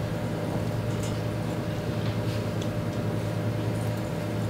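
Steady low hum and hiss of room tone, with a few faint clicks.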